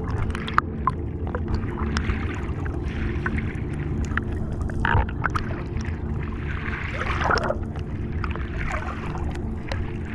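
Underwater sound during spearfishing: a steady low hum with scattered sharp clicks and bubbling bursts, the longest about seven seconds in.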